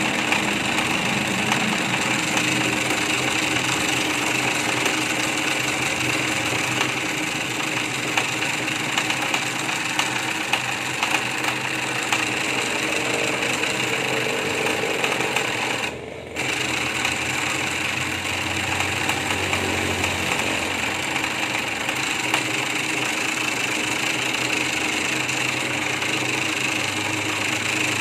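Homemade jigsaw running, its reciprocating blade mechanism making a steady, fast mechanical rattle. It dips briefly about halfway through.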